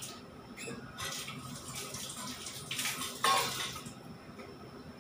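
Dishes being washed at a sink: water running and dishes and utensils clattering, with a couple of louder clinks about three seconds in.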